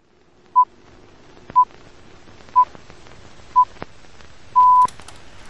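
Film countdown leader beeps: a steady tone near 1 kHz sounds four short times about a second apart, then once longer near the end. Underneath there is a faint hiss that slowly grows, with a few sharp clicks.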